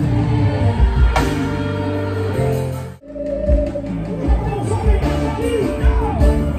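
Live band music with singing and electric guitar, played loud through a concert sound system. It cuts out for an instant about three seconds in, then carries on.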